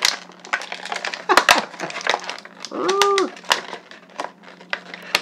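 Clear plastic toy packaging crinkling and crackling in quick irregular clicks as an action figure is worked out of it by hand. About three seconds in comes one short hummed vocal sound, rising then falling in pitch.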